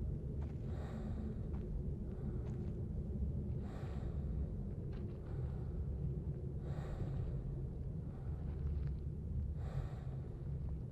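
Slow, deep human breathing, one breath about every three seconds, over a steady low rumble.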